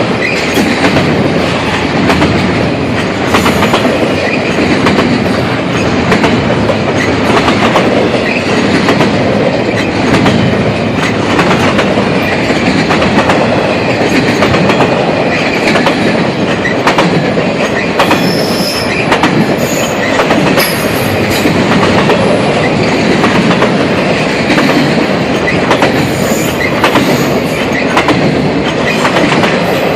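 CSX intermodal freight cars rolling past: a steady loud rumble of wheels on rail with frequent clicks as wheels cross rail joints, and brief faint high wheel squeals in the second half.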